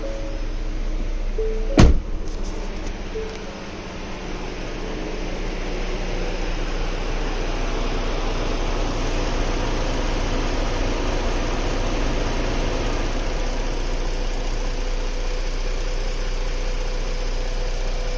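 2016 Ford Explorer engine idling steadily, the rough idle that the owner complains of. A few short chime tones and a sharp knock come in the first two seconds, before the idle settles into a steady hum.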